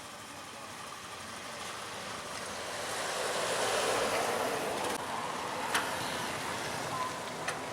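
A motor vehicle passing close by: a rushing noise that swells to its loudest about halfway through and then eases off, with a few sharp clicks in the last couple of seconds.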